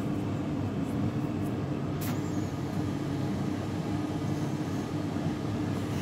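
AEG Lavatherm tumble dryer running mid-cycle: a steady hum and rumble from the turning drum and fan, with a light click about two seconds in.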